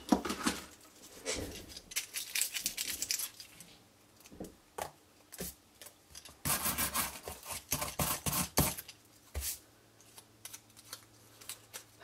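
Die brush bristles scrubbing over a detailed metal cutting die and the cardstock pressed in it, pushing the cut bits out: three spells of quick scratchy strokes, with a few single taps of tools on the table in between.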